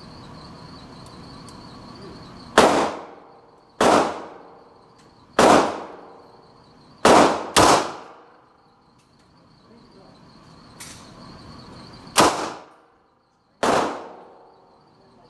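Handgun shots in an indoor shooting range: seven loud, sharp reports at uneven intervals, two fired in quick succession about seven seconds in, each followed by a short echo. A faint steady high-pitched tone runs underneath.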